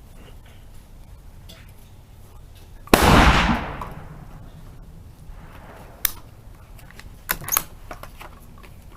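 A single rifle shot about three seconds in, its report fading away over about a second, followed by a few short, sharp clicks later on.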